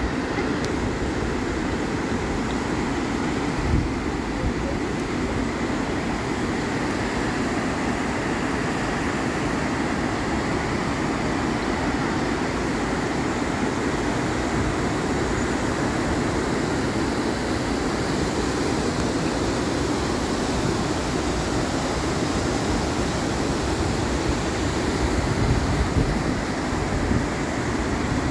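Steady roar of a large waterfall and rapids on the Una river, white water pouring into a churning plunge pool.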